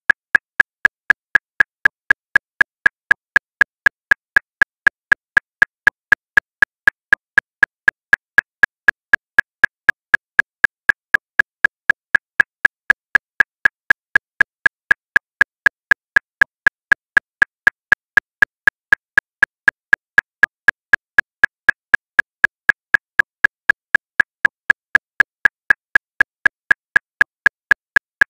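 Metronome clicking at 239 beats per minute: about four identical, evenly spaced clicks a second, with no accented beat.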